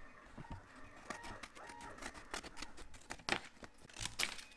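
Scissors cutting through cardboard: quiet snips and crunches, with two louder cuts near the end.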